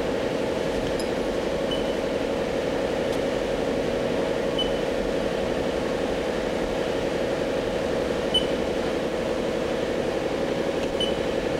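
Haas EC-400 horizontal machining center running with its X axis traversing: a steady mechanical hum with a held drone in the middle range. A few faint short high chirps come several seconds apart.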